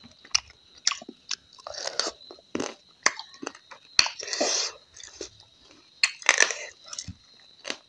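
A person chewing and biting food close to a clip-on microphone, in irregular crunchy bursts with sharp clicks between them. A faint steady high whine sits underneath.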